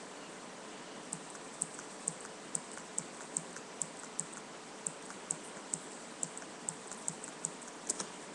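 Computer keyboard keys tapped one at a time: a steady run of sharp clicks, about two a second, over a steady hiss.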